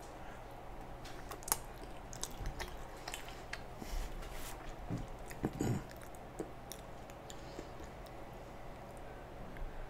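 Close-miked chewing of a mouthful of pizza, with wet mouth clicks, a short rustle about four seconds in as a cloth is wiped across the face, and a brief low vocal sound a little past five seconds.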